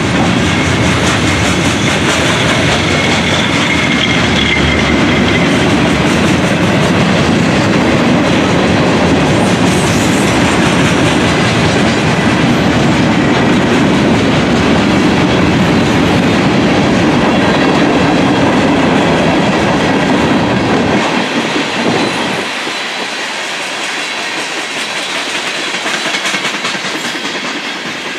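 Train passing close by, its wheels clattering over the rail joints in a steady loud rush. About three quarters of the way through the low rumble drops away and the sound eases off.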